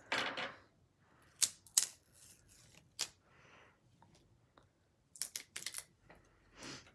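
Sharp clicks and taps of small metal and plastic parts from a dismantled iPhone 3GS being handled and set down on a wooden table: a few single clicks, then a quick cluster of clicks about five seconds in.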